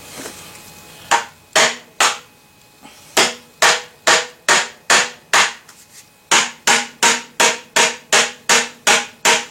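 A hammer striking PVC pipe into furniture-grade PVC fittings to seat a stubborn joint. About nineteen sharp knocks come in three runs, two to three a second, each with a brief ring.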